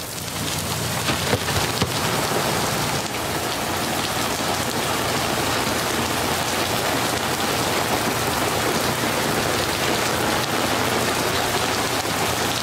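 Steady rain falling, an even hiss of drops with no break.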